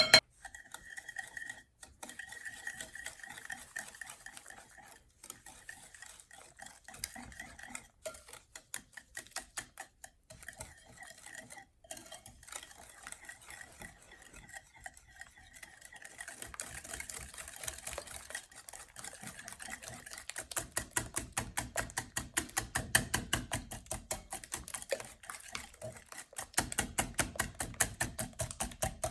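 Hand whisk beating in a mixing bowl: quick, rhythmic metal clicks of the whisk against the bowl, getting faster and louder from about halfway through.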